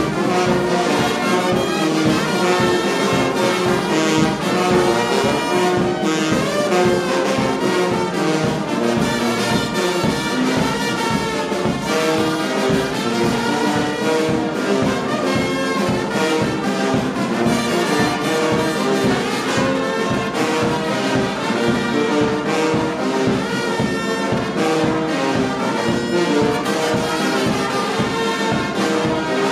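Brass band playing, several horns sounding held notes together in harmony at a steady level.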